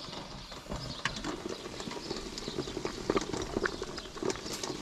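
Pot of heavily salted water at a rolling boil with yabby tails in it, bubbling with many short, irregular pops and clicks over a low rumble.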